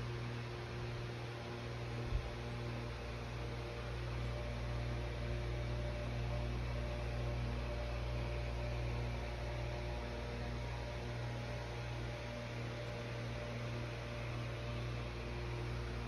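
Steady electrical hum with evenly spaced overtones over a steady hiss, broken once by a short click about two seconds in.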